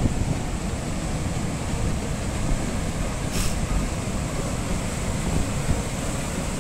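Sea surf breaking and washing over rock shelves, a steady rushing wash, with wind buffeting the microphone as a low rumble.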